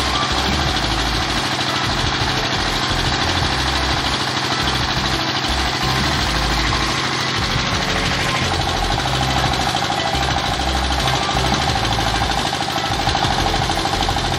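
S-1100 16 HP single-cylinder diesel engine running on test after service, its beat even and strong: a sign that the fuel injection is now working properly. A higher steady hum comes in a little past halfway.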